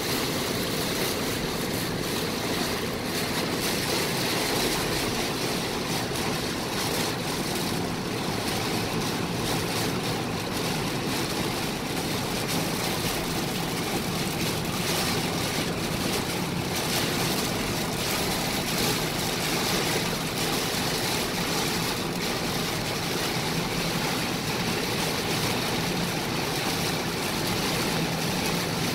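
Heavy rain beating on a car's roof and windshield, with tyres hissing over a flooded highway, heard from inside the cabin as a steady rushing noise.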